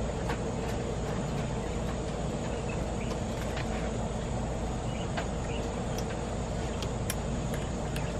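Steady low rumble of outdoor background noise, with a few faint short clicks scattered through it.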